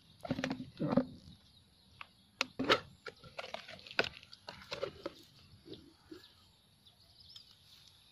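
Sharp knocks and rustling of a small plastic tub being handled, with a freshly caught fish in water inside it; the loudest knocks come between two and three seconds in.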